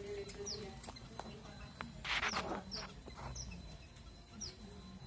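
Small finches (munias) in a colony cage giving short, high, downward-sliding chirps, repeated every half second or so. A louder rustling burst comes about two seconds in.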